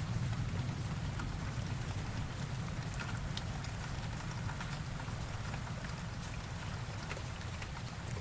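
Rain sound effect: steady rainfall hissing, with scattered drop ticks. A low thunder rumble fades away over the first few seconds.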